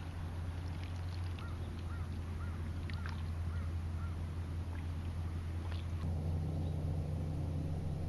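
Steady low outdoor rumble. Over it, a bird gives a run of about six short, arched calls, roughly two a second, along with a few scattered thin chirps.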